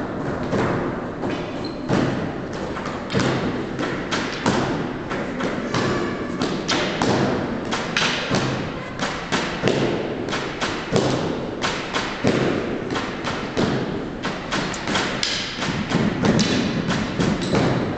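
Canne de combat sparring: many quick, irregular thuds and clacks as the wooden canes strike each other and hit the fighters' protective gear, mixed with steps on a hard floor.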